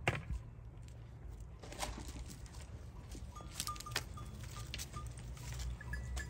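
Flock of sheep moving about in a tight group: a steady low rumble of shuffling, scattered sharp clicks, and several short, thin high clinks in the second half.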